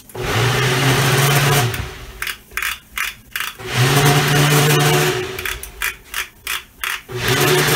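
Electric kitchen blender pulsed in three bursts, its motor spinning up, running for about a second and a half and winding down each time, with short knocks between the bursts.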